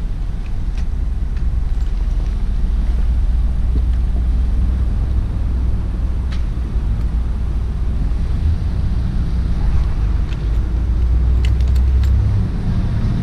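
Yamaha Ténéré motorcycle engine idling steadily after a jump start from a portable jump starter, with a flat battery whose voltage is not recovering.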